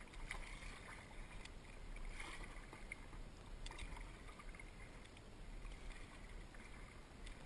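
Kayak paddle blades dipping into calm river water with light splashes at each stroke, over a low wash of water moving along the hull.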